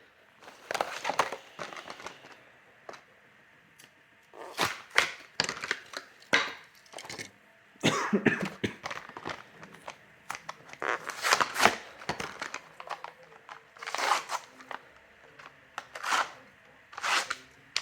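Plastic blister packs and cardboard backing cards of Hot Wheels premium die-cast cars being torn and cracked open by hand, in irregular sharp crackles and crinkles.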